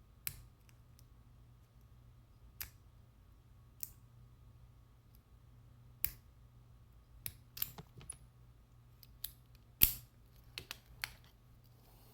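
Lock picks working a lock: scattered sharp metallic clicks and taps at irregular intervals, the loudest a little under ten seconds in, over a faint steady hum.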